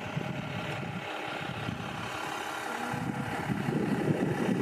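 Car engine running at low speed, a steady rumble.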